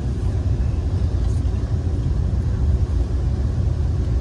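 Steady low rumble of a passenger rail car rolling along the track, heard from inside the car.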